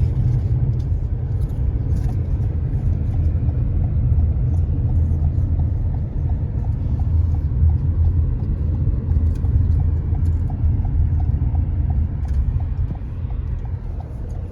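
Car cabin road noise: a steady low rumble from the tyres and engine while driving. Faint regular ticking about twice a second runs through the middle.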